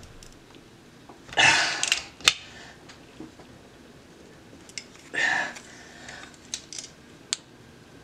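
Hand-operated sight-pusher tool being worked on a pistol slide to push out a tight stock sight: two short scrapes of metal, a sharp metallic click just after the first, and a few lighter clicks of tool and slide.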